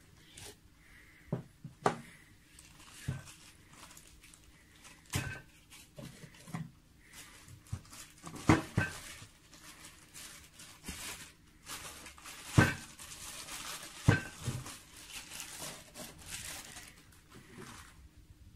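Clicks and knocks of a hard plastic screw-top eyepiece case being opened and handled, with a plastic bag crinkling as the eyepiece is unwrapped, mostly in the second half.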